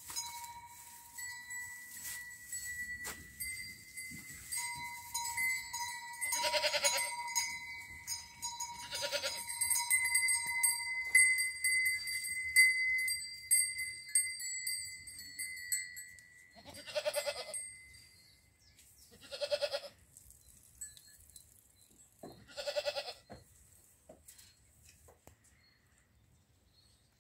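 Goats bleating: five separate bleats, two close together and then three more spaced a few seconds apart. Steady high ringing tones run underneath through the first two-thirds and then stop.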